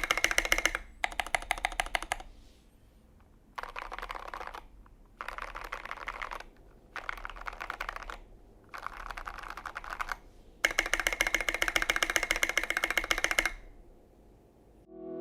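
Typing on a custom Tofu84 mechanical keyboard in an acrylic case with an aluminium plate, lubed Gateron Milky Yellow linear switches and SA keycaps. The keys clack in several bursts of rapid keystrokes with short pauses between them, and a longer, louder run of fast typing comes near the end.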